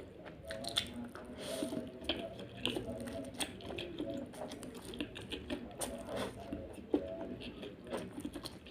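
Close-up mouth sounds of someone eating spicy instant noodles: a run of quick wet clicks, smacks and squishy chewing.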